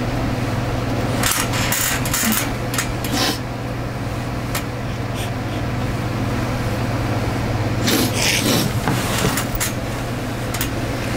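A steady low hum, with soft rustling and rubbing of bedding and clothes in two spells, about a second in and again around eight seconds in.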